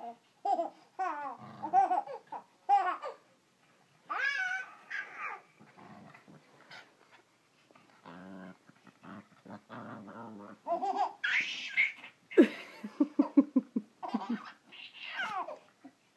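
A baby squealing and laughing, with a run of rapid laughter about two-thirds of the way through, while a small dog growls in play as it mouths his hand.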